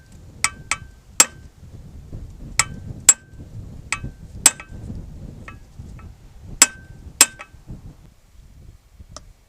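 Hammer striking metal: about a dozen irregular blows, each with a short metallic ring, knocking a stuck part out. The blows come in loose clusters, and the last comes after a pause near the end.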